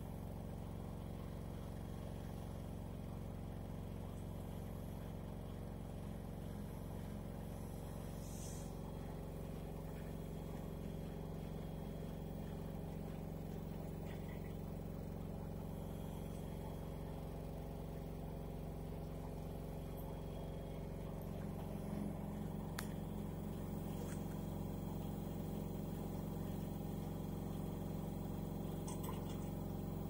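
LG FV309N front-loading washing machine running with a steady hum, its pitch holding constant, with a few faint clicks.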